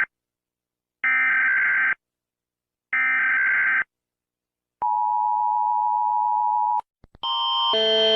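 Emergency Alert System alarm: two SAME-header data bursts, each about a second long and a second apart, then a two-tone attention signal held for about two seconds that cuts off. Near the end a different, louder alarm of alternating tones starts.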